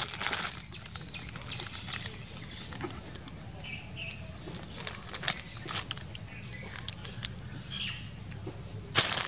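Clear plastic sheeting rustling and crackling as a cat paws and claws at it, in scattered short bursts, with louder rustles just after the start and near the end.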